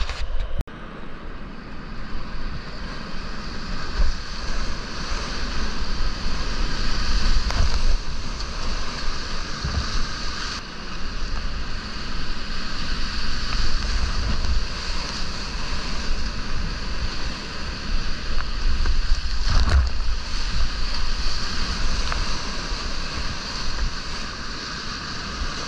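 Big whitewater rapid at high flow, rushing and splashing around a kayak, heard up close from the boat with water spray and wind buffeting the microphone. The level surges unevenly as the boat runs through the waves.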